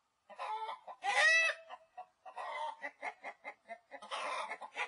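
A domestic hen clucking. A louder drawn-out call comes about a second in, then a run of short clucks, and a rougher call near the end.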